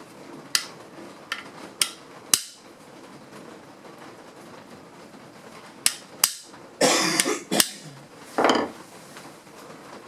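Metal bench plane being adjusted and handled on a workbench: a series of sharp metallic taps and clicks, with two short scraping sounds later on.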